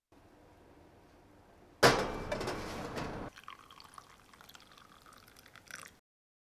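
Tea poured from a glass French press into a glass cup: a loud splashing stream starts suddenly about two seconds in and stops after about a second and a half. A lighter trickle and drips into the cup follow, then the sound cuts off.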